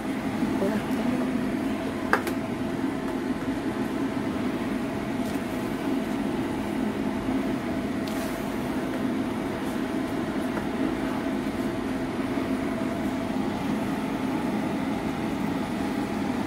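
Water boiling in a stainless steel pan over a steady low hum from the stove, with one sharp click about two seconds in.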